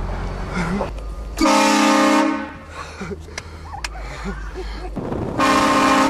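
HornBlasters Shocker XL air train horn blown in two short blasts, each under a second, about four seconds apart, sounding several tones at once.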